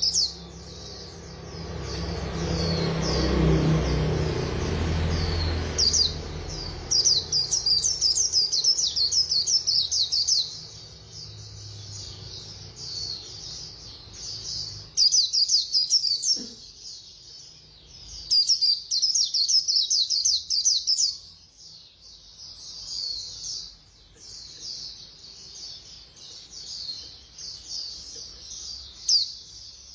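A white-eye (khuyên) singing a rapid, high-pitched warbling song in the 'líu' style: fast chattering runs of notes in bursts of a few seconds, with short pauses between. A low rumbling noise sits under the song for the first few seconds.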